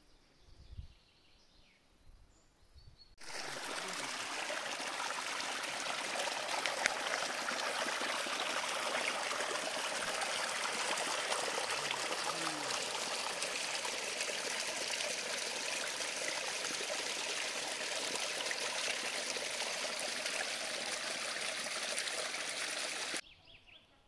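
Small forest brook flowing over rocks and fallen branches, a steady splashing of water. It starts abruptly about three seconds in and cuts off just as abruptly near the end.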